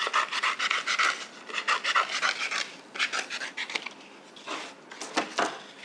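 Scissors cutting a circle out of a sheet of green paper: runs of quick snipping, rasping strokes in bursts, thinning to a few separate strokes near the end.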